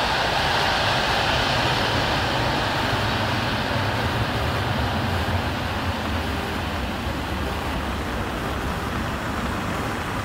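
Jet engines of a four-engine Boeing 747 freighter climbing away after takeoff: a steady, loud jet noise whose high hiss slowly fades while a deep low rumble stays strong.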